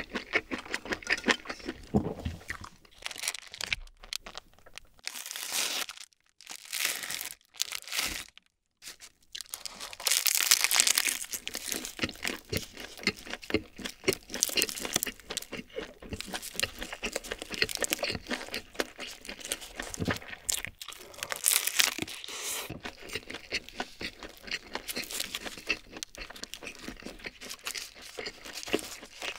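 Crinkling plastic wrapper being torn off a convenience-store triangle kimbap, with loud rustling bursts about a third of the way in. The dried-seaweed wrap crunches as it is bitten and chewed close to the microphone.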